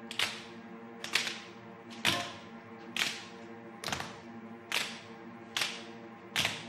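Tap shoes of a group of dancers striking a wooden stage floor in unison, one sharp strike a little under every second, over soft sustained music.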